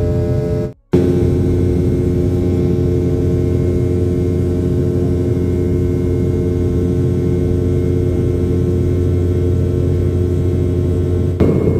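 Airliner cabin noise in flight: a steady engine drone with a deep rumble and a few steady hum tones. It cuts out for a split second just under a second in, and shifts slightly near the end.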